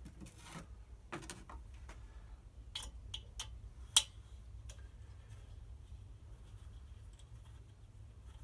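Scattered small clicks and taps of plastic parts and tools being handled as a diesel heater's motherboard is being removed, with one sharp click about four seconds in.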